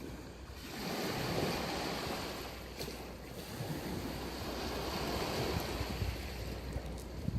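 Sea waves breaking and washing up a sandy beach, the surf swelling about a second in and again around five seconds. Wind rumbles on the microphone underneath.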